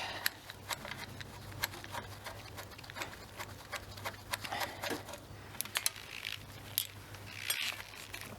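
Spanner and socket working the hex nuts on the rear roller mounting bolts of a reel mower's steel frame: scattered light metallic clicks and scrapes.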